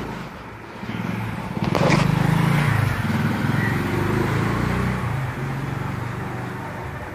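A road vehicle's engine passing by: a low hum that swells about two seconds in, holds, then fades out near the end.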